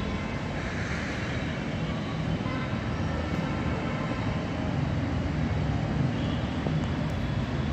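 Steady road traffic noise, an even rumble of vehicles with no single event standing out.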